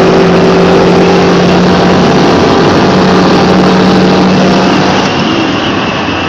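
GMC Sierra's 5.3-litre LS V8 pulling hard at steady high revs, heard loud from inside the cab. About five seconds in it eases off and the sound drops.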